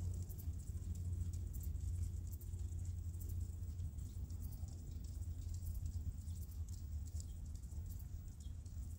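Steady low wind rumble on the microphone, with the soft footfalls of a horse trotting on arena sand and scattered faint clicks.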